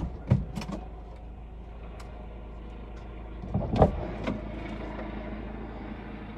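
A few knocks and clicks of things being handled and a person shifting about, with another short cluster of knocks about four seconds in, over a steady low hum.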